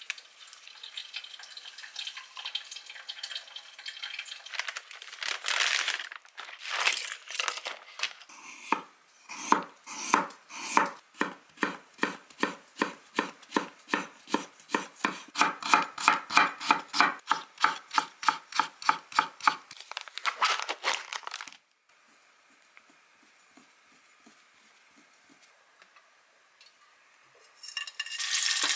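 Kitchen knife slicing a carrot on a wooden cutting board in a long, steady run of about three cuts a second, after some light rustling handling at first. Near the end, a sausage starts sizzling in an oiled frying pan.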